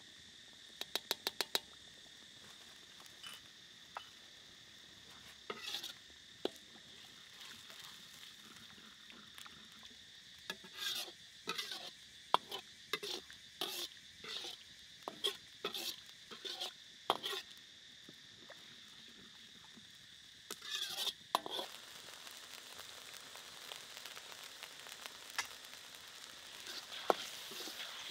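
Metal ladle stirring and scraping sauce in a steel wok, with sharp clinks of the ladle against the pan in irregular runs. The simmering chili sauce sizzles, growing louder near the end.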